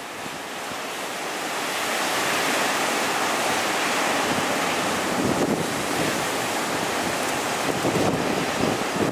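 Heavy typhoon surf breaking: a steady rush of waves that swells over the first two seconds, with wind gusting on the microphone.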